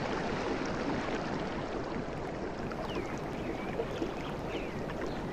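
Steady wash of water, with a few faint bird chirps about three seconds in.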